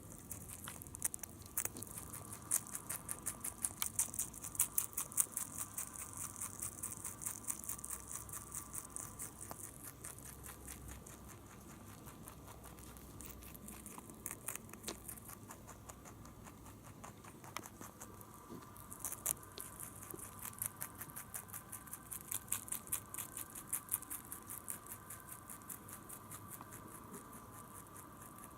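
Holland Lop rabbit crunching a fresh carrot: fast, dense chewing clicks in two spells, with a quieter stretch in the middle of about ten seconds.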